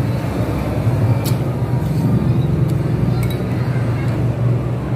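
Steady low rumble of road traffic, with a few light clinks of forks and spoons against ceramic noodle bowls.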